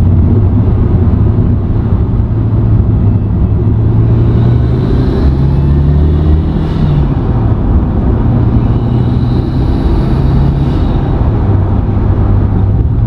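Mitsubishi Lancer Evolution V's turbocharged 4G63 inline-four, breathing through a freshly fitted HKS cold air intake, pulling under acceleration on the road. The engine note climbs in pitch, drops back about seven seconds in, then climbs again.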